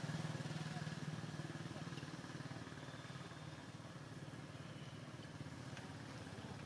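A motor engine's steady low hum, gradually fading away.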